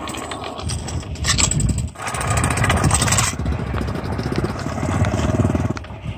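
Stunt scooter wheels rolling over asphalt and paving, a steady rough rumble with a hiss on top that eases a little past three seconds in.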